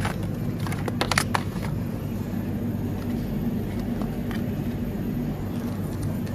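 Steady low hum of supermarket refrigerated display cases, with short clicks and clatter of plastic octopus trays handled into a plastic shopping basket in the first second or so.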